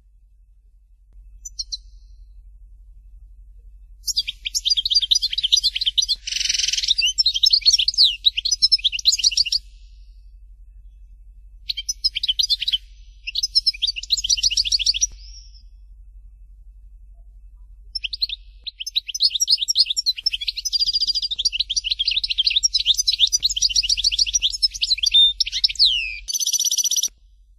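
European goldfinch singing: three long bouts of rapid, high twittering trills and chirps, separated by pauses of a few seconds.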